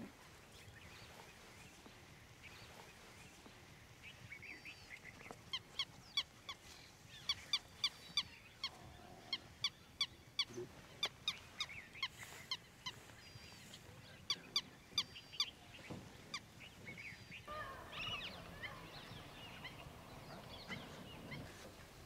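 An animal giving a long series of short, sharp, honking calls, about two a second, followed near the end by softer bird chatter.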